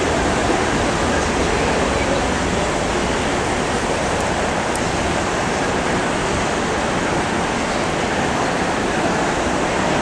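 Jet engines of a Boeing 737 airliner heard from a distance as it lands, a steady rushing noise.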